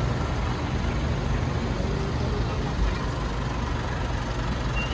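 Steady low rumble of an idling vehicle engine, with a wash of noise above it.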